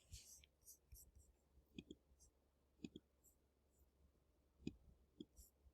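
Near silence with a few faint, scattered clicks and taps from underlining text by hand.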